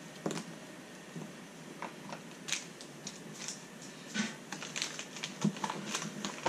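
Small plastic kit parts being handled and set down on a paper manual: light, irregular clicks and taps, sparse at first and coming more often from about four seconds in.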